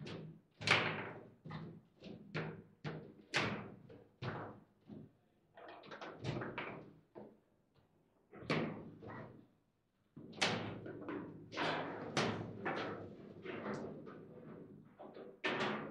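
Foosball being played: irregular sharp knocks and cracks as the ball is struck by the figures on the rods and hits the table's walls. There is a short lull about two-thirds of the way through before play resumes.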